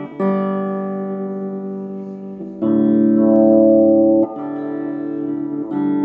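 Electric guitar played through an amplified speaker box: a few chords strummed and left to ring, changing about every one and a half seconds. The tone is clean, with no crackle or distortion, now that the fault in the box's TDA2050 output amplifier chip is fixed.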